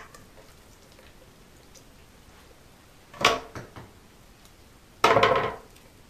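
Kitchen knife cutting pike flesh on a cutting board, knocking and scraping against the board in two short bursts about three and five seconds in, the second the louder.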